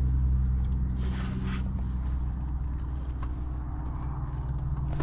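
A steady low mechanical hum, with a short rustling scrape about a second in.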